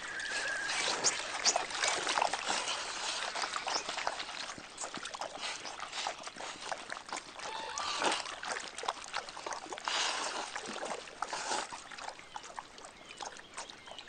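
Water splashing and trickling around a wading moose as it moves in a bog pool and pulls up water plants to eat: irregular small splashes and drips, with a few louder splashes about two, eight, ten and eleven seconds in.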